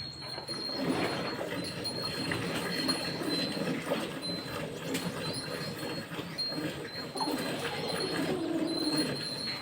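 A cow being milked: a steady, continuous milking noise.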